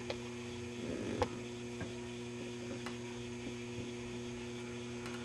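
Steady electrical mains hum, with a few faint clicks or taps, the clearest about a second in.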